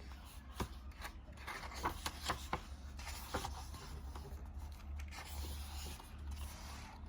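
Paper pages of a picture book being handled and turned: rustling and scraping with several sharp clicks and taps, most of them between about two and three and a half seconds in, over a faint low hum.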